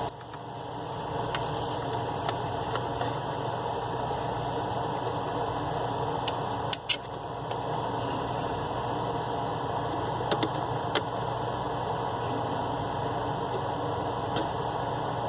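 Small DC-motor mini lathe running steadily, its motor coming up to speed over the first second and then humming evenly, with a few light ticks along the way.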